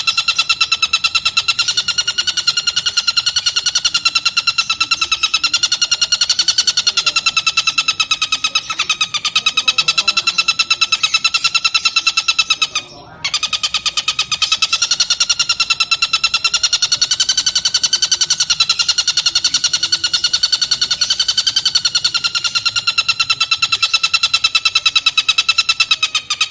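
Tengkek buto (a kingfisher) calling in a rapid, buzzy rattling trill, held almost without pause with its pitch wavering slightly, broken once by a short gap about halfway through.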